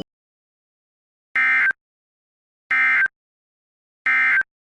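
Emergency Alert System end-of-message tones: three short identical bursts of digital data tones, each about a third of a second long and about a second apart, signalling the end of the alert.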